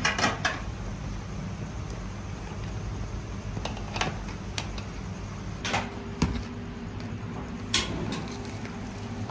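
Scattered clicks and knocks of kitchen work, about seven in all, over a steady low hum; a faint steady tone comes in a bit past halfway.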